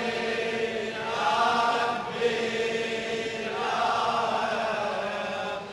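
Soft background chanting of voices holding a steady low tone, with a slow, wavering melody above it.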